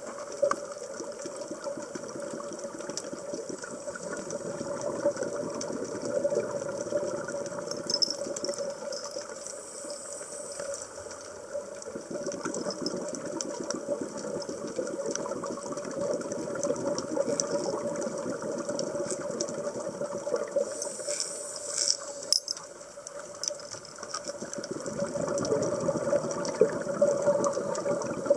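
Underwater sound of scuba divers breathing through their regulators: the bubbling of exhaled air swells and fades every few seconds over a steady hum, with scattered small clicks.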